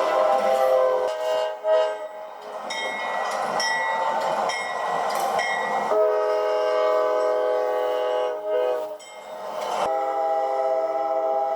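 Train horn sounding chord blasts: one at the start, a long blast of about two and a half seconds past the middle, and another near the end. Between them are rumble and a short ringing tone repeating about every half second.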